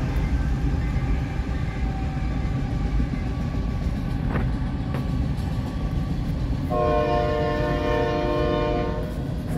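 CSX freight train of autorack cars rolling past with a steady low rumble from the wheels on the rails. About seven seconds in, the locomotive's horn sounds one long chord for about two and a half seconds.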